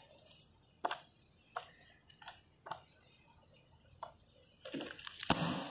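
Pages of a large hardback cookbook being turned: a few sharp paper clicks spaced about a second apart, then a longer rustle of paper with one louder knock near the end.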